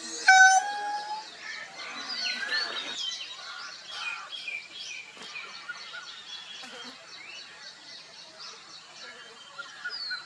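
A peacock gives one loud call about half a second in, a short held note. Many small birds chirp and whistle throughout in the background.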